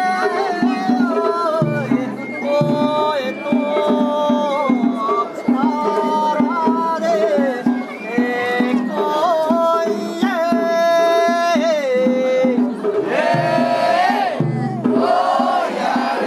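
Japanese festival music: long held melodic notes that bend in pitch, over a steady drumbeat.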